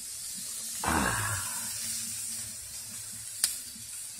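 Pork belly and chicken pieces sizzling on a grill grate over wood embers: a steady high hiss, with one sharp pop near the end. About a second in, a short voice-like sound slides down in pitch.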